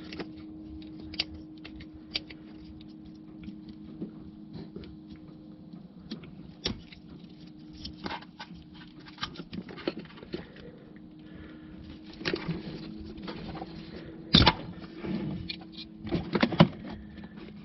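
Scattered small clicks, scrapes and rubbing of hands working a plastic O2 sensor wiring connector loose in an engine bay, with a few louder knocks near the end, over a steady low hum.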